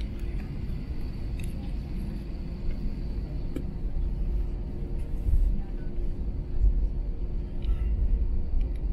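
Airbus A321 cabin noise while taxiing: a steady low rumble with a faint steady hum over it, and a few faint clicks.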